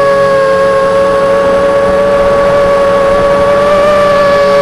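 Electric motors and propellers of a small remote-controlled flying craft running under power, heard up close from its onboard camera as a steady whine of a few held tones, one of them rising slightly near the end.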